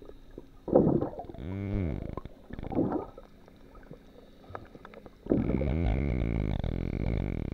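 Muffled underwater gurgling and sloshing of water around a submerged camera, with a burst about a second in, then a louder, steady low rumble from about five seconds in.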